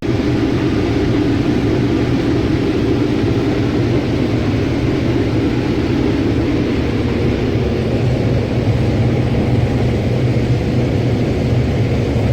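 Combine harvester running, a loud steady machine drone with a low engine hum underneath.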